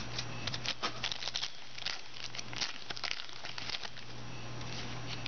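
Foil wrapper of a trading-card pack crinkling and football cards being handled and flipped through by hand, an irregular run of small crackles and clicks.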